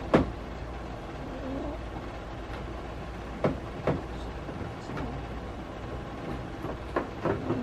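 Sharp plastic knocks and clicks as an LED tail light housing is pushed and fitted into place on a car's rear, over a steady low hum. The loudest knock comes just at the start, two more follow about three and a half seconds in, and a quick cluster of three comes near the end.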